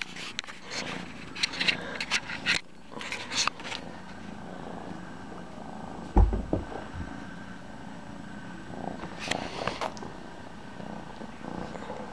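Kitten purring close to the microphone, with clicks and rustles of handling in the first few seconds and a loud thud about six seconds in.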